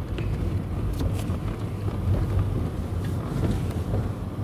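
Car driving over a rough, unpaved track: a steady low rumble of engine and tyres, with a few short knocks and rattles scattered through it.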